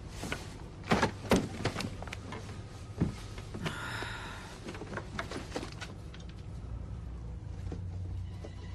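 Footsteps and knocks on wooden boards, the loudest about a second in and again at three seconds, with a short creak about four seconds in, over a low steady hum.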